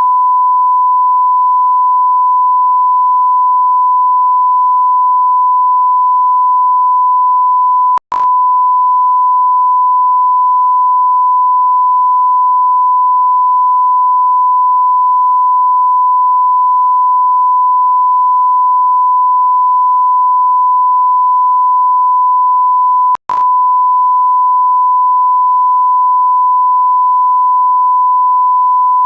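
Steady electronic beep tone at about 1 kHz, a pure sine tone like a censor bleep or test tone. It cuts out twice for an instant, with a click, about 8 seconds in and again about 23 seconds in.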